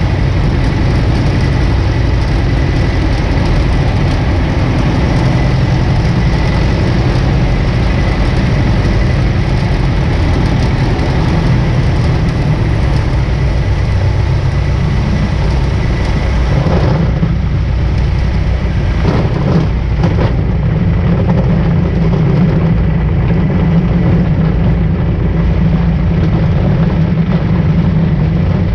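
1947 Aeronca Champ's air-cooled flat-four engine and propeller running steadily at low throttle on a landing approach, heard from the cockpit. A little over halfway through, the hiss over the engine thins out and a few knocks come as the wheels touch down on the grass strip. The engine then runs on with a heavier low rumble through the rollout.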